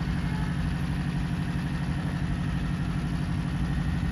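A steady low drone with a fast, even pulse, like an engine idling.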